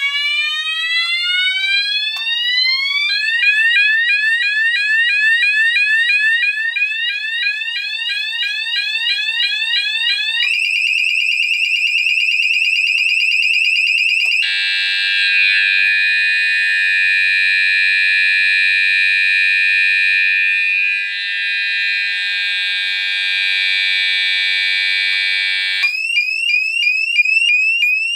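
Sonos DC multi-tone fire alarm sounder going through its tones one after another as its tone-selection switches are changed. First a slow rising sweep, then fast repeated rising sweeps, then a rapid warble, then a long steady tone, and fast sweeps again near the end.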